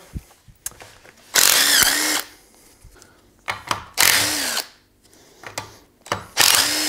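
Cordless drill-driver running in about four short bursts, each spinning up and winding down, as it backs out the cover bolts on a Porsche G50 gearbox.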